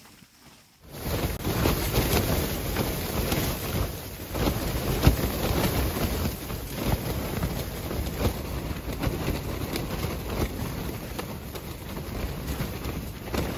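Strong wind buffeting and shaking a tent's fabric walls, with wind-driven snow pelting the nylon in a dense patter, heard from inside the tent. It starts suddenly about a second in and surges in gusts.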